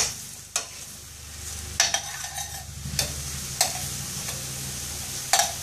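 Diced vegetables being stirred in a stainless steel frying pan, the utensil scraping and knocking against the pan about six times, over a steady sizzle.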